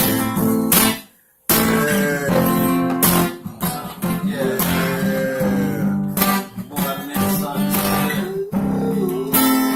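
Music led by plucked, strummed acoustic guitar. It cuts out briefly about a second in, then resumes.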